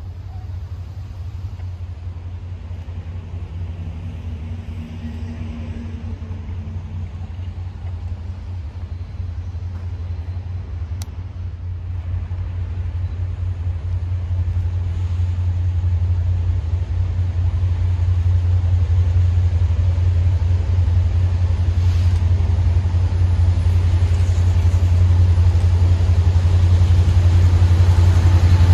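Norfolk Southern freight train's diesel locomotives approaching, a low engine drone that grows steadily louder as they near.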